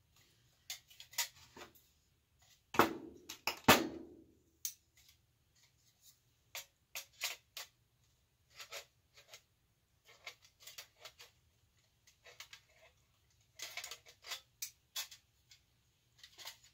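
Thin tin clicking and tapping as an Altoids tin is worked and crimped into a paint-can lid with pliers. About three seconds in come two louder metal clanks that ring briefly.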